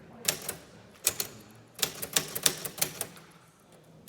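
Typewriter keys struck one at a time in an irregular, slow rhythm: a few strikes, then a quicker run of about half a dozen around two seconds in, stopping about three seconds in.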